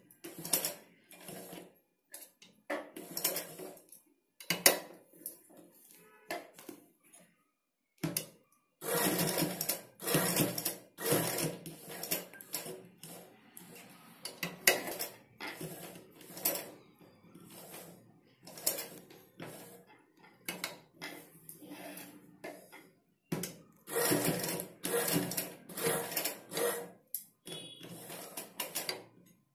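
Domestic sewing machine stitching buttonholes in short stop-start runs, its needle mechanism clattering metallically.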